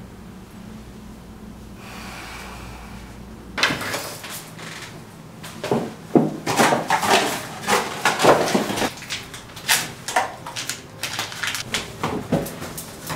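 A low room hum, then from about three and a half seconds in, a busy run of clicks, knocks and rustling as a bag and small objects are handled and set down on a bathroom shelf.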